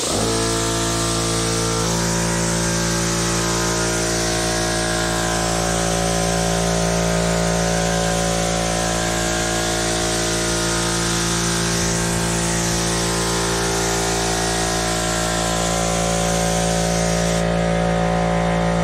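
An air compressor kicks on and runs with a steady, loud motor hum under the hiss of an HVLP spray gun spraying primer. The spray hiss stops near the end.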